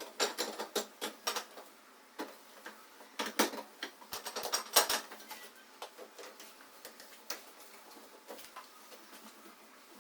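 Light clatter of kitchen items being handled: a run of sharp clicks and knocks in the first half, then only an occasional tap.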